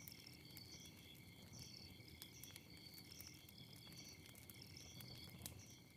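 Faint night ambience of crickets chirping in a steady repeating pattern, about two chirps a second, with scattered faint crackles of a campfire.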